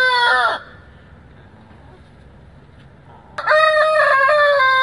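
Rooster crowing: the end of one crow fades out about half a second in, then a long crow starts about three and a half seconds in and is still going at the end.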